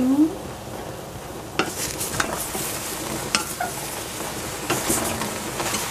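A wooden spatula stirring and scraping cut eggplant pieces around a stainless-steel saucepan with no oil in it yet. From about a second and a half in there is a scraping hiss and a handful of sharp knocks of the spatula against the pan.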